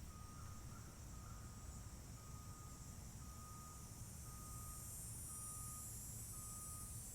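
Faint insect chorus: a high, even hiss that swells slightly. A thin, steady note repeats about once a second with short breaks.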